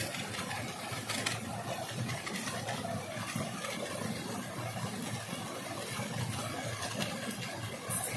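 Shallow stream running over rocks, a steady rush of water. A couple of brief crinkles come from a plastic spice packet being shaken out, about a second in and near the end.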